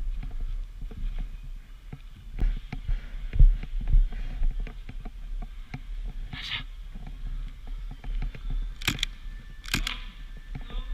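Low rumble and small knocks of movement and handling on the camera's microphone, with a short hiss about six and a half seconds in and two or three sharp snaps around nine to ten seconds in.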